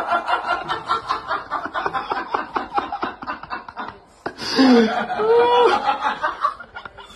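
A person laughing in a rapid, breathy snicker for about four seconds. After a brief break, a voice makes a few drawn-out sounds that rise and fall in pitch.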